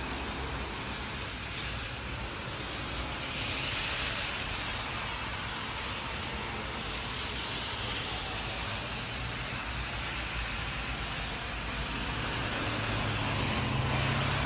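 Traffic on a rain-soaked road: steady hiss of tyres on wet pavement, swelling about a third of the way in, and a car passing close near the end with a rising low rumble.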